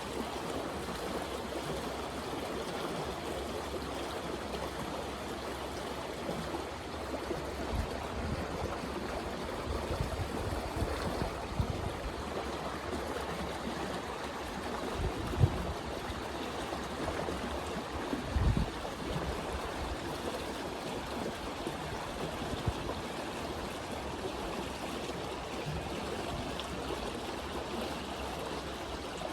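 Steady rush of a flowing stream, with a few brief low thumps around the middle.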